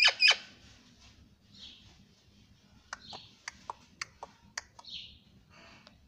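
Indian ringneck parakeet making a short, loud pitched call right at the start, then soft chattering and a quick run of about eight sharp clicks in the middle.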